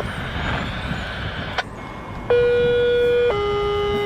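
Two-tone sequential paging tones over a scanner: a higher tone of about one second comes in abruptly past the middle, then steps straight down to a lower steady tone that keeps going. This is the fire-department tone-out that alerts a station before the dispatcher's call. Before it there is only background hiss with a single click.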